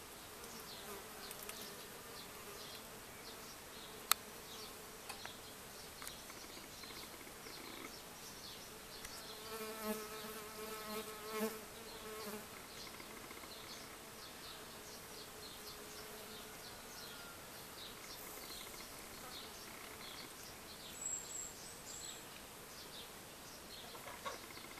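Bees buzzing in flight while foraging at flowers. About ten seconds in, one comes close and its buzz becomes a louder, clearer hum for a couple of seconds.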